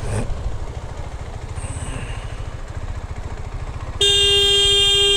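Motorcycle engine running at low revs with an even low throb as the bike rolls slowly. About four seconds in, a vehicle horn sounds one steady note for about two seconds, louder than the engine.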